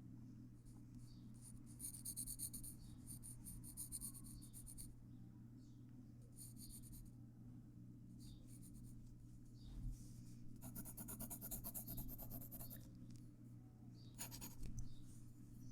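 Pencil scratching on paper in several short bursts of rapid back-and-forth strokes, over a faint steady low hum.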